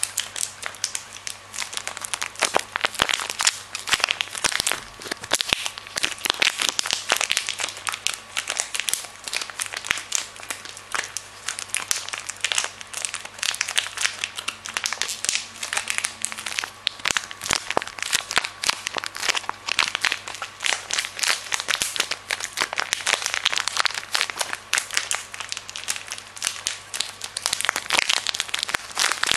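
Crinkly plastic snack-bar wrapper being crumpled and twisted between the fingers: a dense, unbroken run of irregular crackles.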